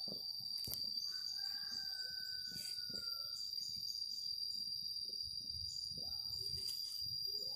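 Rural outdoor ambience: a steady high-pitched insect drone with scattered short bird chirps, and one longer call of about two seconds starting about a second in.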